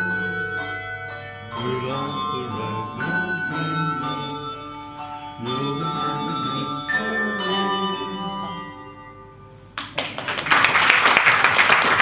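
Handbell choir playing a piece, with struck handbells ringing out in chords and each note hanging on. The final chord dies away just before ten seconds in, and the audience breaks into applause at the end.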